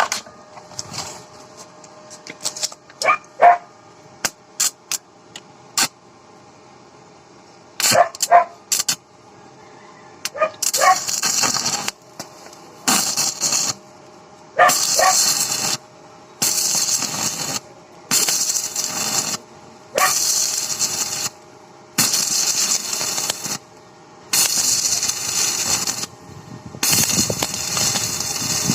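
Metal repair work on a steering rack pinion: a scatter of sharp metallic taps and clinks, some ringing briefly. About ten seconds in it turns into a steady run of hissing, scraping strokes about every second and a half, which keeps on to the end.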